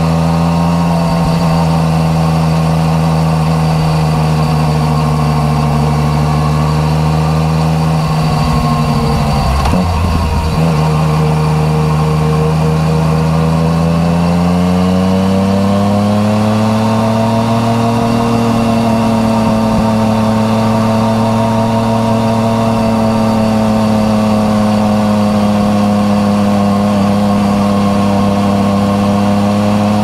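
Yamaha MT-09 Tracer's three-cylinder engine running through an Akrapovič titanium exhaust under way, with a steady note at first. The note is briefly broken about a third of the way in, as with a throttle change or gear shift. From about halfway the engine pitch rises and then holds steady at higher revs.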